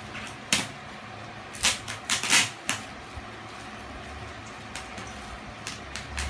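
Pink bubble wrap on a package crackling as hands grip and pull at it. There are a few sharp crackles about half a second in, a quick cluster near two seconds, and a few fainter ones later on.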